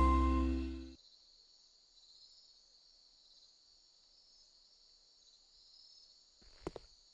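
A children's music cue ends on a held chord that fades out within the first second. Faint, steady chirring of crickets follows as night-time ambience, with one brief soft sound near the end.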